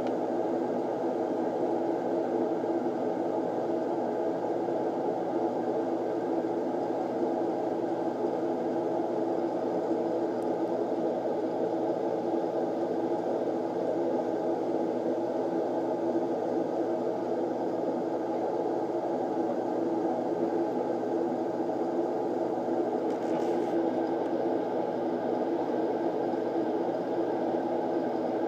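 Steady low whirring hum, even and unbroken, with a few faint steady tones in it.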